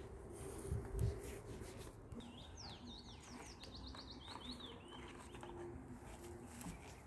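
Two low thuds about a second in, then a small songbird singing a quick run of high chirping notes for about three seconds.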